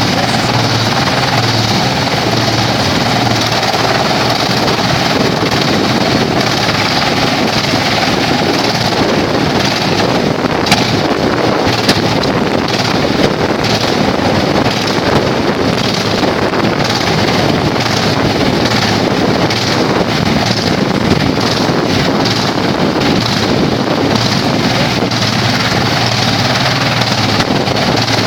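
Forestry wood chipper running loud and steady, with a few brief sharp cracks between about ten and twenty seconds in.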